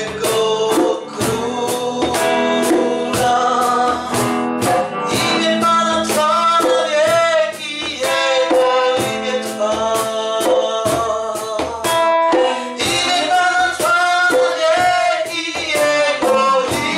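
A worship song: singing over a strummed guitar with a steady beat.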